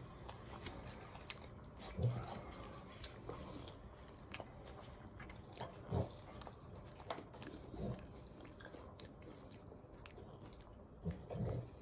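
A person chewing food quietly during breakfast, with a few brief soft sounds about two, six and eight seconds in.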